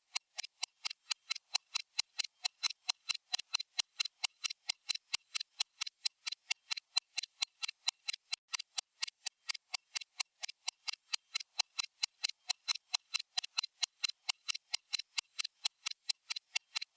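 Stopwatch ticking sound effect: sharp, even, high-pitched ticks at a fast steady pace of several a second.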